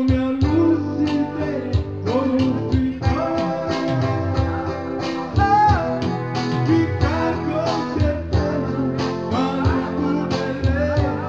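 Live band music: guitar playing over a steady drum beat.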